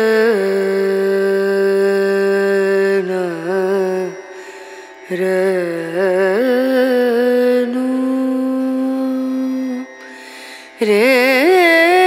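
Indian devotional music: a single melodic line of long held notes with sliding, wavering ornaments. It breaks off briefly about four seconds in and again near the end.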